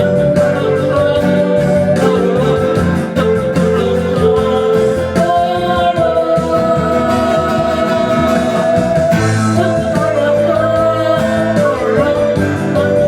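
Singing with guitar accompaniment, with a long held note in the middle.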